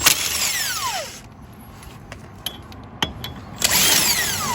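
A power tool spinning lug nuts off a wheel, run twice for about a second each time, its motor whine falling in pitch as it winds down after each run. The nuts are barely tight, so they come off at once.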